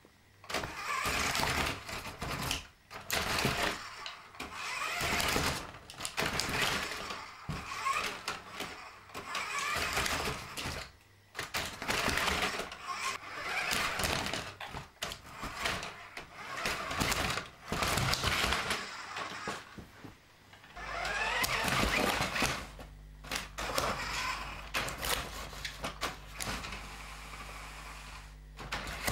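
New Bright Ram RC truck's 6-volt electric drive motor and gearbox whirring in repeated bursts of a second or two as it is driven back and forth over bumpy obstacles, with newspaper crinkling and knocks from the tyres and plastic body. About two-thirds of the way through, the whir rises in pitch as the motor speeds up.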